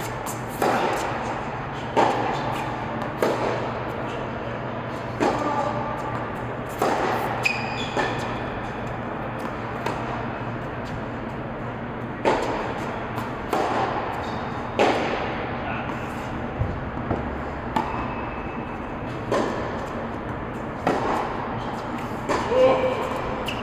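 Baseline tennis rally: rackets striking the ball and the ball bouncing on the court, a sharp pop about every one to one and a half seconds, each ringing briefly in the echo of a large indoor tennis hall.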